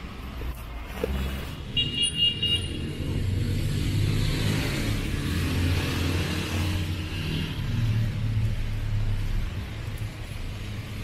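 Road traffic on a rain-wet street: a motor vehicle's engine runs close by for several seconds, with tyre hiss off the wet road, then fades near the end. About two seconds in there is a brief high-pitched tone.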